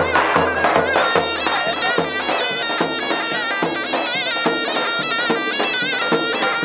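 Live davul and zurna playing folk dance music: a steady beat on the big double-headed drum under a wavering, reedy melody.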